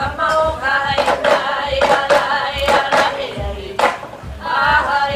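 Hawaiian chanting for hula, accompanied by an ipu gourd drum struck in a steady beat, with deep thumps and sharp slaps.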